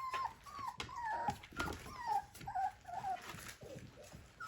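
Four-week-old puppies whining and whimpering as they explore: a run of short, high-pitched whines, many of them falling in pitch, one after another. The whining is the mix of excitement and fear of puppies just out of the nest for the first time.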